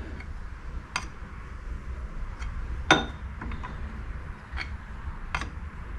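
Several sharp, light metallic clinks of a steel pry bar against the lathe's spindle gear and collar as the spindle is bumped, checking for end play while the spindle bearing preload is set. The loudest clink comes about three seconds in, over a low steady hum.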